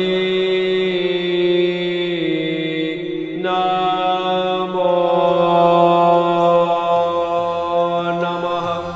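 Background music: a mantra chanted in long held notes over a steady drone, with a short pause about three seconds in.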